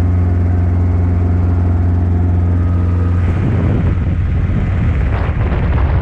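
Small helicopter heard from inside the cabin: a steady, loud engine and rotor drone in flight. About three seconds in, the drone turns rougher and less even.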